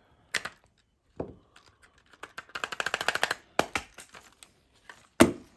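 Original 1998 Furby handled and tapped: clicks and knocks of its plastic body, with a run of rapid clicking in the middle as its long-idle motor and gears start to turn. The loudest knock comes near the end.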